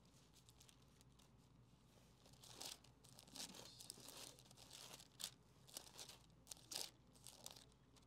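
Faint rustling of thin Bible pages being turned: a run of short, irregular crinkles starting about two and a half seconds in.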